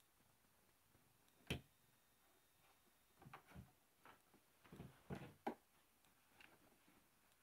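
A few light knocks and clicks against near silence: one sharper knock about a second and a half in, then a scattered run of them between about three and five and a half seconds.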